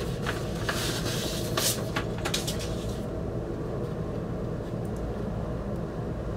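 A vinyl record being handled, with rustling and light clicks for about three seconds. A steady low rumble runs underneath throughout.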